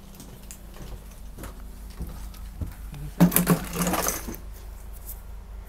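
Broad Street Line subway train running at speed, heard inside the car: a steady low rumble, with a loud burst of metallic clattering and rattling about three seconds in that lasts about a second.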